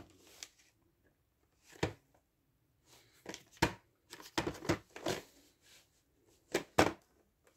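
VHS tapes in their sleeves and cases being handled: a series of short rustles, scrapes and knocks, bunched into clusters and strongest near the end.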